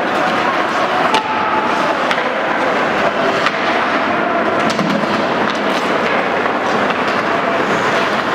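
Ice hockey play on an indoor rink: skate blades scraping the ice under a steady rink noise, with several sharp clacks of sticks and puck.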